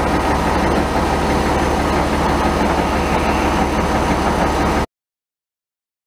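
International Harvester 1066 tractor engine running steadily, heard from inside the cab with a deep steady hum. The sound cuts off suddenly about five seconds in.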